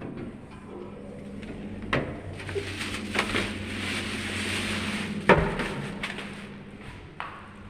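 Plastic shopping bags rustling, with a few sharp knocks, the loudest a little past five seconds in, over a steady low hum.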